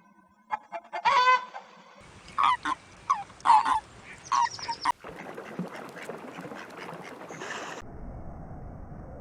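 Waterfowl calling: a run of about six or seven loud, pitched calls over the first half, then a steadier noisy background with fainter calls.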